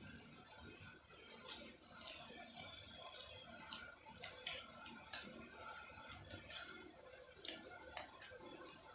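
Close-up mouth sounds of a person eating spicy Maggi noodles: irregular wet smacks and clicks of chewing, about one a second.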